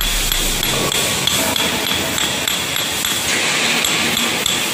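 Repeated hammer blows on the steel piston of a crawler crane's grease-filled track-adjuster cylinder, metal striking metal. The piston is being driven down, forcing old grease out of the cylinder's port.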